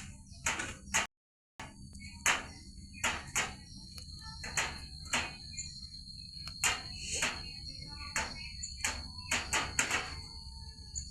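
Irregular sharp clicks and taps, with a steady high-pitched whine entering about a second and a half in, over a low steady hum.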